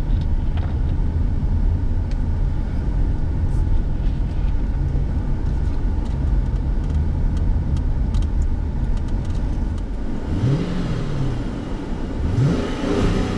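Cabin noise of a 2010 Dodge Charger Police Package under way: a steady low engine and road rumble, then near the end the engine's pitch climbs and drops twice as it pulls away.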